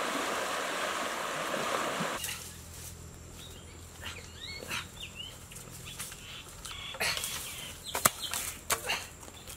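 Muddy river water rushing steadily, cutting off about two seconds in; then a few bird chirps, followed by footsteps rustling through dry bamboo leaves with a sharp crack near the end.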